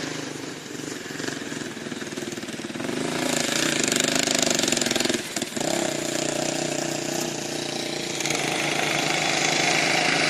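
Off-road buggy engine running, growing louder about three seconds in, with a brief dip a couple of seconds later.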